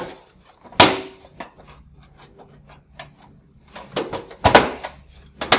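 The hinged front door of a UR protective relay chassis being swung shut and latched. There is a single knock about a second in, then a quick run of clicks with a louder snap at about four and a half seconds as it is pressed home, and one more sharp click near the end.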